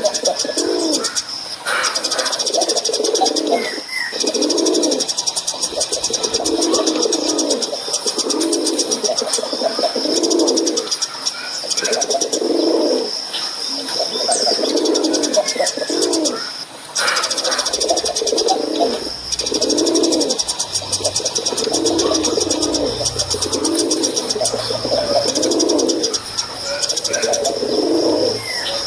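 A male domestic pigeon cooing over and over, each low, throaty coo phrase following the last about every second and a half.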